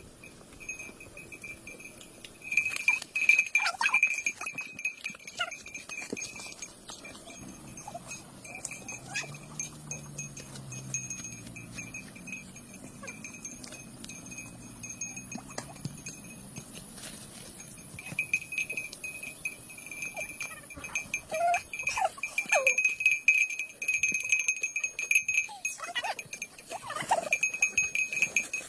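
Livestock outdoors: a low, drawn-out animal call from about eight to twelve seconds in, over a steady high whine that comes and goes, with scattered short clicks and chirps.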